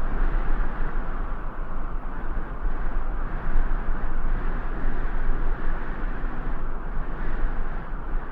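Winter wind blowing steadily, a rushing noise over a deep rumble that swells and eases slightly.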